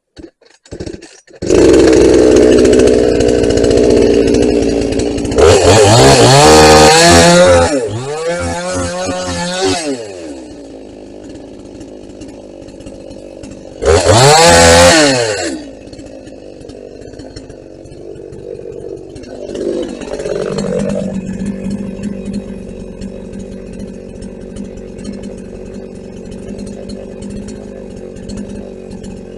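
Large vintage Husqvarna two-stroke chainsaw coming in about a second in, then revved hard twice in long rising-and-falling sweeps, around 6 to 10 seconds and again around 14 seconds, between spells of running more quietly, while snedding branches off a felled tree.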